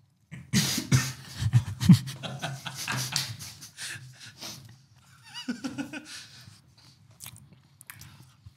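Close-miked biting and chewing of a flaky custard-slice pastry: dense crackling and smacking mouth sounds, loudest in the first couple of seconds, then thinning out. About halfway through comes a short hummed vocal sound, followed by a few quieter mouth clicks.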